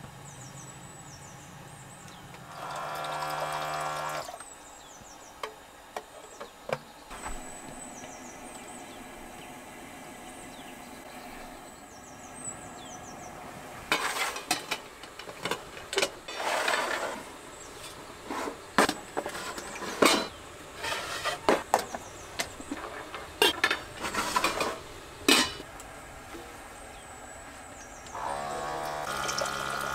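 Stainless steel camp cookware being handled on a table: a run of metal clinks and knocks of pots and lids through the middle of the stretch. A brief steady hum sounds about three seconds in and again near the end, and faint high chirps recur every few seconds.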